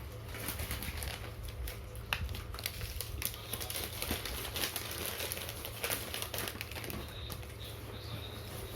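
Irregular crackles and sharp clicks from snack eating: plastic snack wrappers handled and crisp wafer-biscuits crunched, over a steady low hum.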